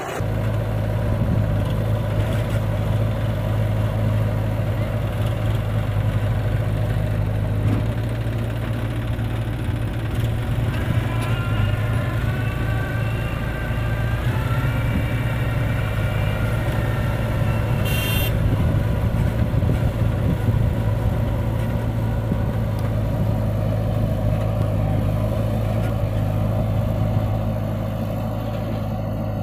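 Diesel engines of a farm tractor and a JCB 3DX backhoe loader running steadily with a low drone as the backhoe works. A faint higher whine wavers in for a few seconds near the middle, and there is a single short click just past the middle.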